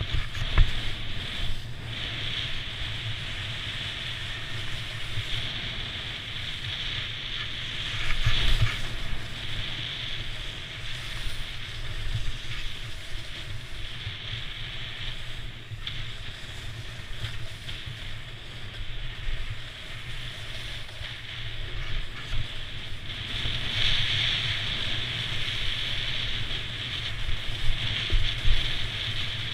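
Snowboard sliding and carving down a snow slope: a steady scraping hiss of the board on snow, swelling louder on a couple of turns, mixed with wind rushing over the microphone.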